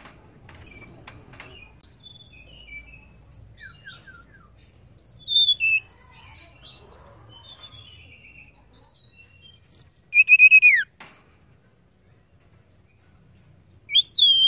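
Blue flycatcher (tledekan) calling: soft scattered chirps and short whistles, with three loud bursts of quick whistled notes, several sliding downward, about a third of the way in, about two-thirds in, and at the very end. The call is offered as a female tledekan's, used to stir males to sing.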